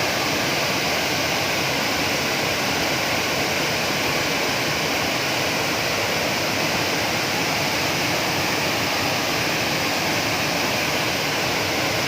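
Waterfall rushing: water pouring and splashing in a steady, unbroken roar of noise.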